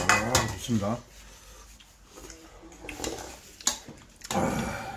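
A man's voice in the first second, then a light utensil click, and near the end a short slurp as ramen broth is drunk straight from the bowl.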